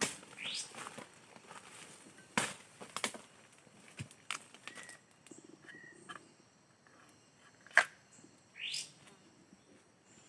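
Outdoor bird sounds: a few short chirps and two quick rising calls, mixed with several sharp snaps or knocks, over faint steady high tones.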